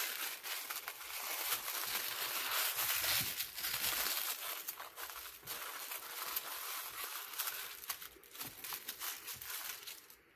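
Tissue paper crinkling and rustling as a wrapped package is unfolded by hand, a dense papery crackle that grows quieter near the end.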